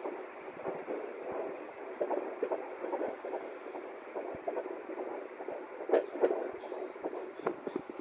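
A heartbeat sound being played: soft, crackly thuds at an uneven pace over a steady hiss.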